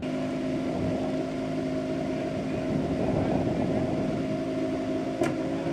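Off-road race vehicle engine idling steadily, with a couple of sharp clicks near the end.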